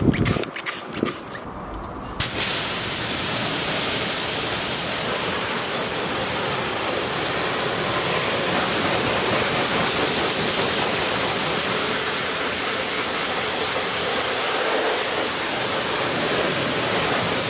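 Pressure-washer jet rinsing wheel cleaner off an alloy wheel: about two seconds in, a steady, loud hiss of water spray starts and runs on evenly.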